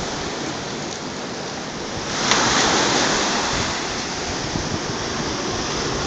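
Black Sea surf washing up a sandy beach in a steady rush of breaking waves, with one wave crashing louder about two seconds in.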